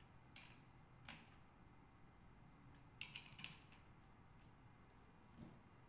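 A few faint, scattered metal clicks from a small socket wrench on the clutch lifter-plate bolts of a Honda CBX 1000 clutch, a small cluster of them about three seconds in, as the bolts are given a final tug after bottoming out.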